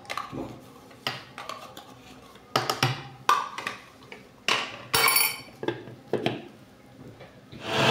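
Plastic blender jug and lid being handled on the blender base: a series of separate clicks and knocks, irregularly spaced, with a louder rushing noise near the end.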